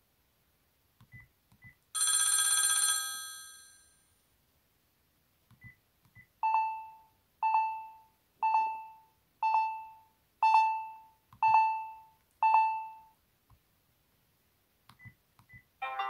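Built-in ringtones of a Sharp SH900i flip phone played through its small speaker, with paired key clicks between them. First the 'black telephone' tone: an old bell telephone ringing once for about a second and dying away. Then the alarm tone: seven short beeps, about one a second.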